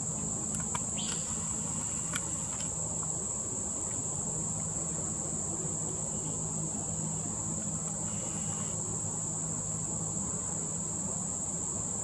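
Insects giving a continuous, steady, high-pitched drone, with a few faint clicks in the first couple of seconds.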